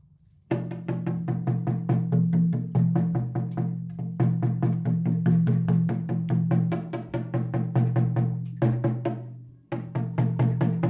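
Drumstick tapping a snare drum's freshly fitted Remo Powerstroke 77 batter head over and over, about five taps a second, while a tension rod is adjusted to tune it up. Each tap rings at the same pitch, and the taps come in runs with short breaks about 4 and 9 seconds in.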